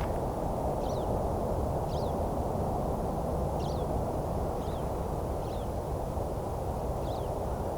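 Pine siskin flight calls: short, high, down-slurred chirps about once a second from a bird circling overhead. They sit over a steady low rushing noise.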